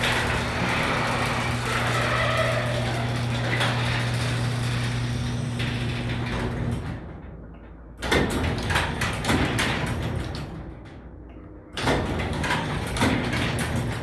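Garage door opener running with a steady motor hum, which cuts off about seven seconds in. Then come two separate bursts of rattling, clattering noise.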